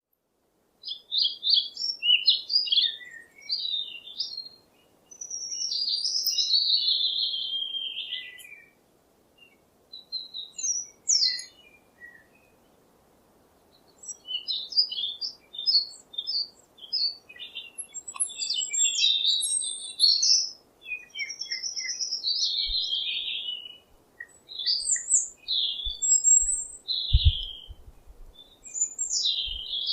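Songbirds singing in quick chirping and warbling phrases, with a couple of short pauses. A few faint low thumps come near the end.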